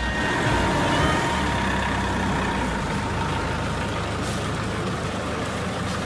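Truck engine running steadily.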